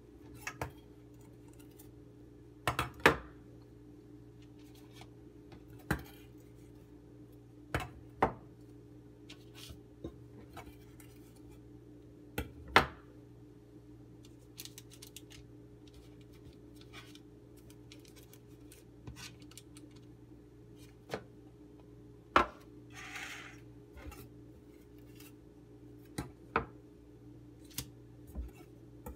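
Scattered sharp knocks and clicks of dough rounds being set down on a parchment-lined metal baking tray, with the tray knocking against the stone countertop now and then. A brief paper rustle comes about two-thirds of the way through, over a steady low hum.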